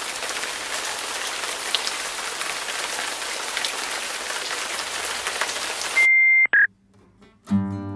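A steady hiss of noise with faint crackles, cut off about six seconds in by a loud high-pitched beep lasting about half a second. After a moment of near silence, guitar music begins near the end.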